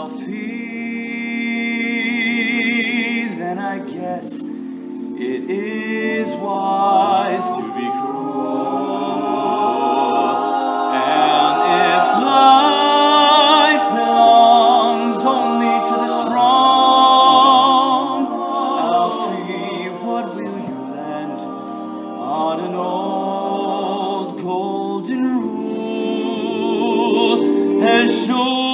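Male a cappella group singing a slow ballad: a male soloist carries the melody with vibrato over sustained chords from the voices behind him, without instruments. The singing swells louder through the middle.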